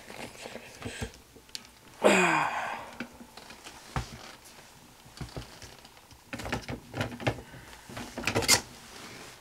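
Plastic clicks and rattles from handling a direct-drive washer's agitator parts while clearing out chunks of the worn, broken agitator dogs. One brief loud squeak falling in pitch comes about two seconds in.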